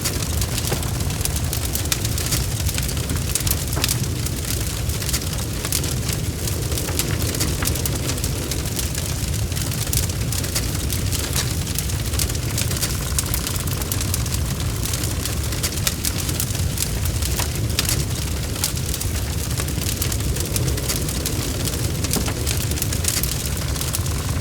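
Wood fire in a fireplace crackling and popping, with frequent sharp snaps over a steady low rumble of the flames.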